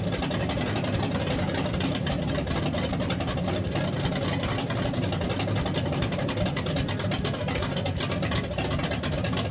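Big-block Chevy 540 stroker V8 idling steadily through open headers with no mufflers.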